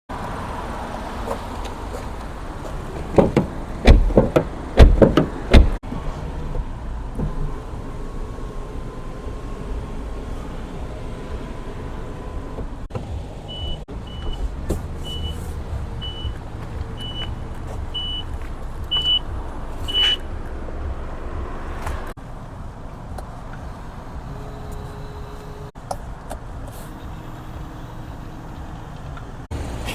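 Sounds of a 2024 Faw Bestune B70 FL liftback: a cluster of loud thumps about 3 to 6 seconds in, then a string of about eight short high beeps roughly one a second, all over a steady low hum.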